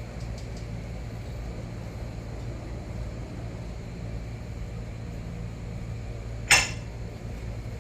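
Car lift lowering a vehicle, a steady low hum as it comes down. One short, loud sharp sound with a ringing edge comes about six and a half seconds in.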